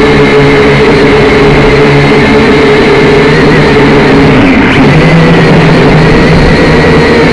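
Small drone's electric motors and propellers running with a steady whine, recorded from the onboard camera, briefly changing pitch about four and a half seconds in.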